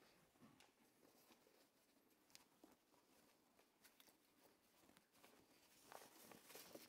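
Near silence with faint rustling and light clicks from handling the pushchair's seat fabric on its frame. There is a slightly louder cluster of rustles and clicks near the end.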